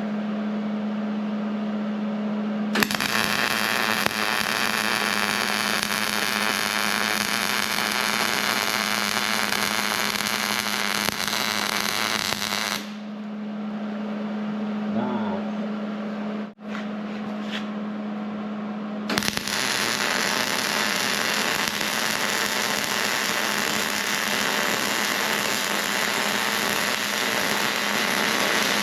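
MIG welding with a Hobart welder: two long runs of steady crackling arc, the first starting about three seconds in and lasting about ten seconds, the second starting a few seconds after it stops. A steady low hum runs underneath.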